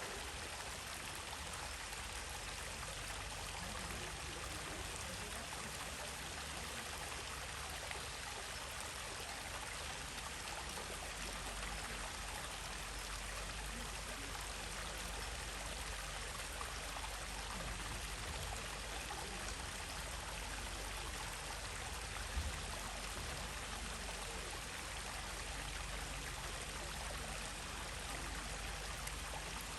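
Stream water flowing steadily, an even rushing wash that does not change.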